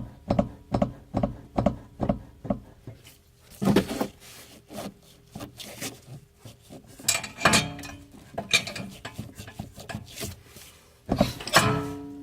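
Driver's-side rear suspension of a B7 Audi RS4 clunking under repeated hand pressure on the wheel: quick knocks, two to three a second at first, then scattered knocks with rubbing creaks. The owner takes it for a bad strut mount or a shock absorber whose top nut has not been tightened.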